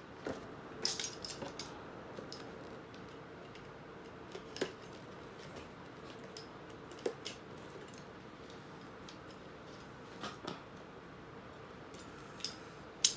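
Cardboard figure box and a plastic box cutter being handled: scattered light clicks and taps, a second or more apart, over faint room noise.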